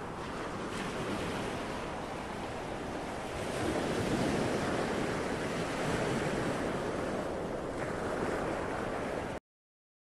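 Ocean waves washing: a steady rushing sound that swells louder a few seconds in, then cuts off suddenly near the end.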